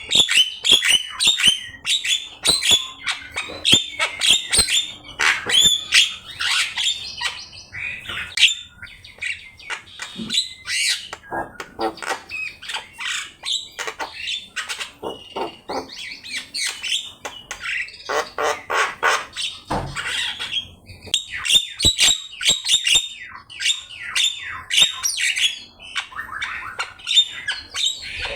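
Javan myna (jalak kebo) singing an unbroken, rapid string of harsh squawks, clicks, chatter and whistled notes, with a few short pauses.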